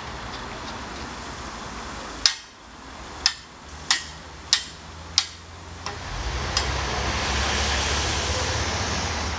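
Over a steady low engine hum, five sharp hammer blows on metal ring out, a little under a second apart. Near the end a louder steady rushing noise with a low rumble takes over.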